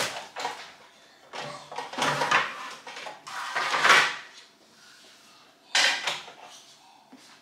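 Handling noise from a Tefal contact grill: four bursts of clattering and rattling as its hinged lid is lifted open and then lowered shut, the last a sharp clack about six seconds in.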